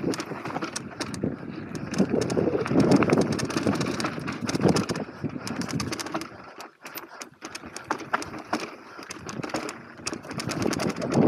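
Mountain bike running down a dirt trail: tyres crunching over dirt and loose stones, with the frame, chain and parts rattling and knocking over bumps. A brief lull about seven seconds in, then the rattling picks up again.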